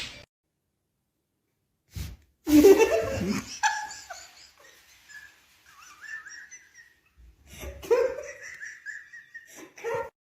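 People laughing in short bursts, with a faint high-pitched sound between the laughs.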